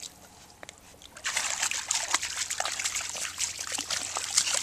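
A Weimaraner and a Chihuahua splashing through shallow lake water, their paws making a rapid run of small splashes and sloshes that starts about a second in.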